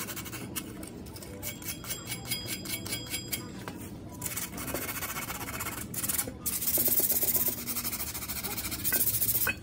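Sandpaper being rubbed back and forth over a stainless-steel muffler canister, a hissing scrape with each stroke, as scratches are sanded out of the metal with water. The strokes are loudest about two-thirds of the way through and again just before the end.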